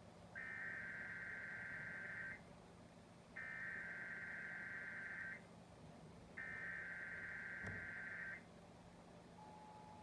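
Emergency Alert System SAME header: three bursts of digital data tones, each about two seconds long and about a second apart, sent to open a Required Monthly Test. Near the end the steady tone of the EAS attention signal begins.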